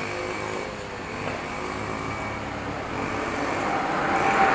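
Road traffic: a steady hum of passing vehicles that grows louder near the end as a vehicle approaches.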